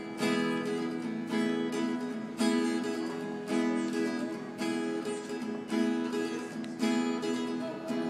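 Acoustic guitar strummed in a steady rhythm, a fresh chord struck about once a second, with no singing.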